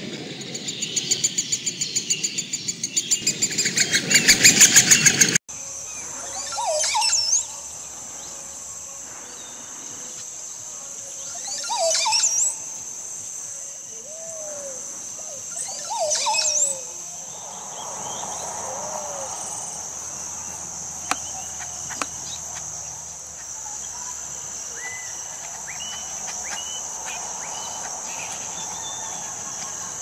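Montezuma oropendola giving its gurgling display song three times, each a few loud liquid notes gliding sharply in pitch, over a steady high insect drone. Before it, a fast rhythmic chattering grows louder and cuts off abruptly about five seconds in, and faint chirps follow the songs near the end.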